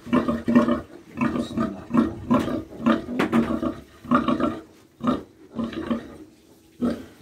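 Sow grunting over and over, short low grunts about two a second that space out and fade near the end, while her newborn piglets suckle.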